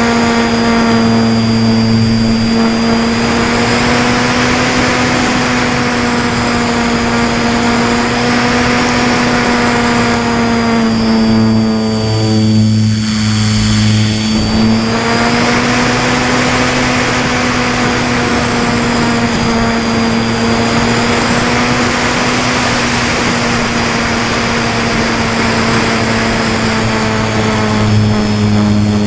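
Motor and propeller of a foam radio-controlled plane running steadily in flight, heard close from a camera on the airframe. The drone's pitch wavers slowly with throttle and eases briefly about twelve seconds in, as the plane rolls.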